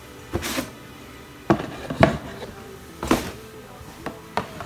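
Windows system chimes and error sounds from the PC's speakers, played at random by the MEMZ malware: about five short ringing sounds in quick succession, the loudest near the middle.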